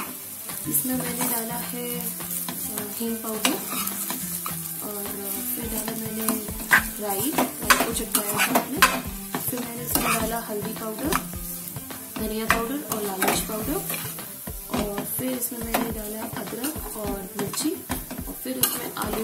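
Flat metal spatula stirring and scraping spiced mashed potato in a metal kadai, with frequent sharp clicks and knocks of the spatula on the pan over a light frying sizzle.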